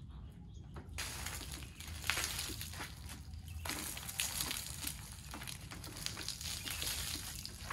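Rough scrubbing and rubbing strokes, a brush or cloth worked over a surface while washing, starting about a second in and going in uneven bursts.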